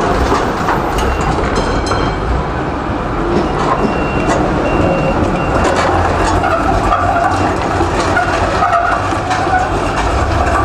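Electric tram rolling slowly past over street rails, a steady rumble mixed with the noise of city traffic.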